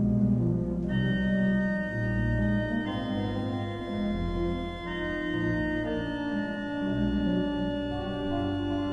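Pipe organ playing held chords over a moving bass line, the chords changing every second or two.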